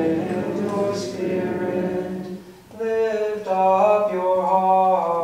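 A priest chanting a sung liturgical prayer at Mass, in two phrases of held notes with a brief break about two and a half seconds in.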